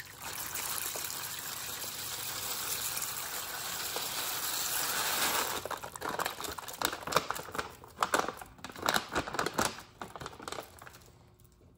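Beeswax pellets pouring in a steady rushing stream from a bag into a crock pot of warm mineral oil for about six seconds. Then irregular crinkling and rattling as the bag is shaken out and handled.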